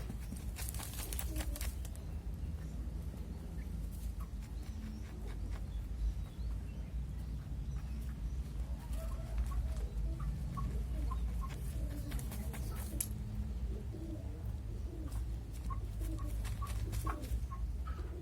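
Bangkok game chickens and Indonesian village chickens clucking softly, with runs of short high peeps in the second half, over a steady low rumble. A few sharp clicks come near the start.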